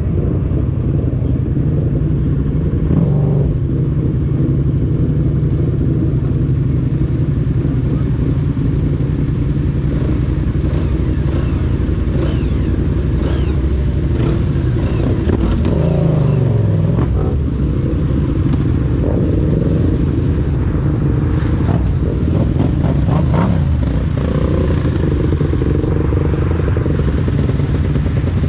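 Yamaha MT-07's 689 cc parallel-twin engine running while riding, its note dropping in pitch around the middle and climbing again a few seconds later.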